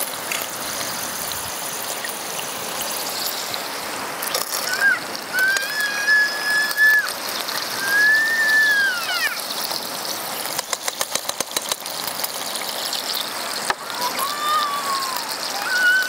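Steady wind-and-sea noise. A few high whistle-like tones stand out, one held about a second and a half, the others arching up and down. Midway comes a quick run of metallic clicks as a utensil scrapes inside a small can of tomato paste.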